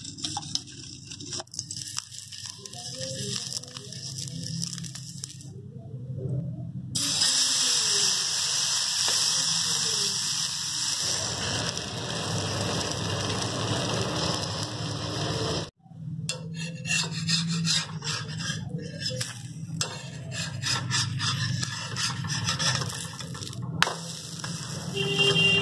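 A ladle scraping through flour-and-cabbage batter in a steel bowl, then a steady sizzle as the batter cooks on a hot iron tawa. In the last part a spatula scrapes and clicks against the griddle as the pancake is loosened and turned.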